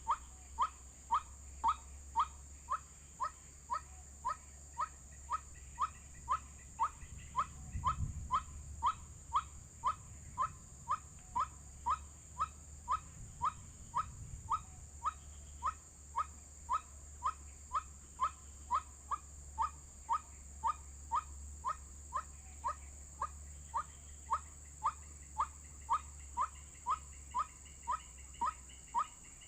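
White-breasted waterhen's "ruak" call, a short rising note repeated very regularly about twice a second, the monotonous call used as an MP3 lure to draw waterhens in. Under it is a steady high hiss, with a low rumble about eight seconds in and again near fourteen seconds.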